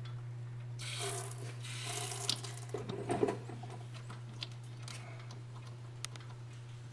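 Leftover gasoline let out of a pressurised fuel line as its valve tab is pushed in, hissing and splattering into a drip pan. The flow starts about a second in, is strongest for a couple of seconds, then dwindles to scattered drips. A steady low hum runs underneath.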